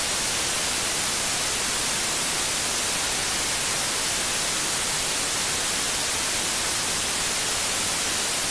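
Analog television static: a steady, even hiss of white noise that does not change.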